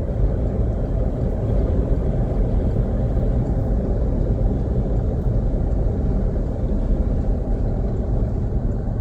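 Vehicle interior noise while driving: a steady, loud low rumble of engine and tyres on the road.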